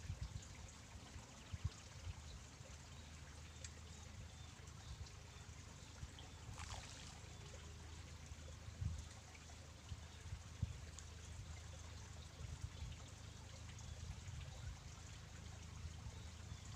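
Faint outdoor ambience: an uneven low rumble with small knocks and a soft, watery-sounding hiss. There is one brief louder noise about six and a half seconds in.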